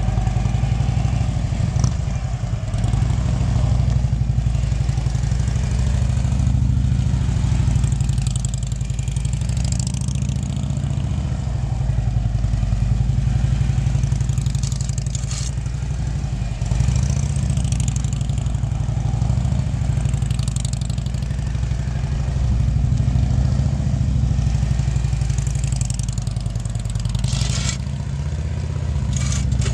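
Harley-Davidson touring motorcycle's V-twin engine running through slow, tight cone maneuvers, its revs rising and falling with the throttle throughout.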